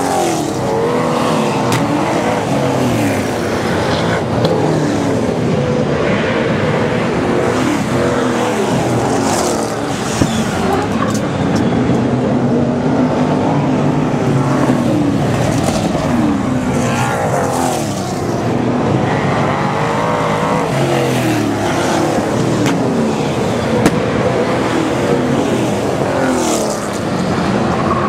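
A pack of speedway super saloon race cars racing on a dirt oval, several engines revving up and down together as they lap and pass, without a break.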